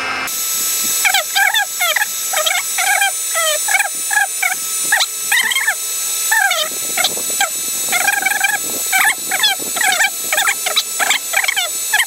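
Small birds chirping rapidly and continuously, many short pitched notes several a second. Underneath is the steady hiss of a heat gun running.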